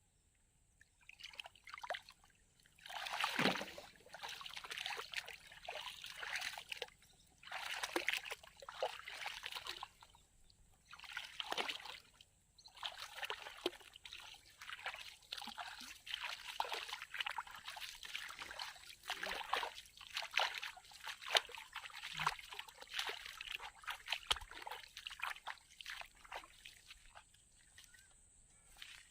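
Water splashing and sloshing in irregular bursts, with trickling in between.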